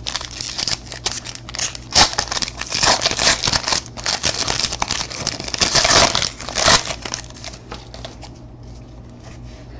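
Wrapper of a 2013 Panini Certified football card pack being torn open and crinkled, a dense crackling for about seven seconds, then lighter clicks as the cards are handled.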